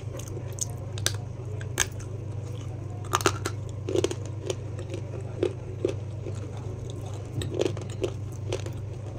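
Crunchy food being bitten and chewed close to the microphone: a few sharp crunches in the first seconds, then softer chewing crunches every half second or so, over a steady low hum.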